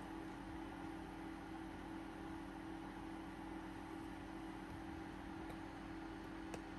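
A steady low hum under a faint even hiss, with one small click near the end.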